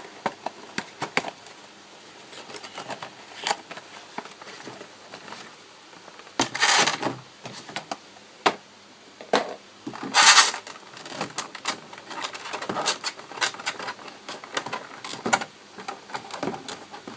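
Cardboard model box being opened and handled by hand: scattered taps and clicks, with two louder rustling scrapes about six and a half and ten seconds in.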